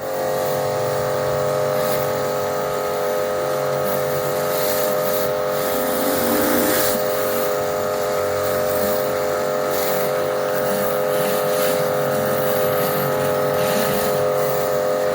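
Kärcher K5 electric pressure washer running under load with the trigger held: a steady motor-and-pump hum over the hiss of the water jet from the lance set to its hard setting.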